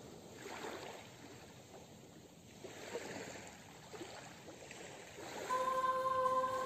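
Gentle sea water lapping and washing in soft swells. About five seconds in, a steady held musical note comes in as the song begins.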